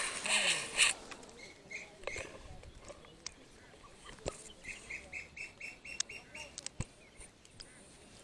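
A brief voice at the start, then a bird chirping a quick run of about eight short high notes around the middle, with a few sharp clicks scattered through.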